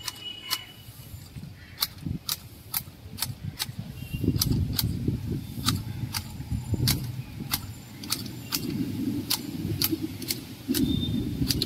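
Long-handled hedge shears snipping through a conifer shrub's foliage, the blades closing with sharp metallic clicks about twice a second. A low rumble runs underneath from about four seconds in.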